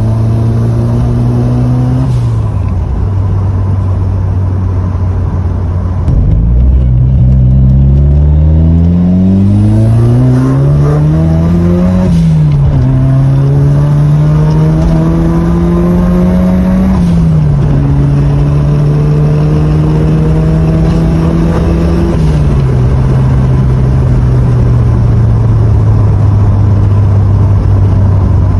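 Ford Sierra RS Cosworth's turbocharged 2.0-litre four-cylinder engine on the road. It gets louder about six seconds in and climbs in pitch, drops sharply at a gear change about halfway, holds a steady note, then steps down twice and settles to a low, even run near the end.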